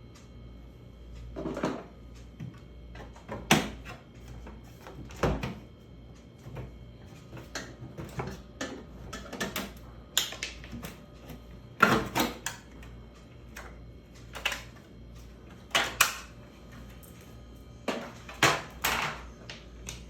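Irregular knocks and clatter of hard parts and tools being handled, about a dozen sharp strikes at uneven intervals, over a faint steady hum.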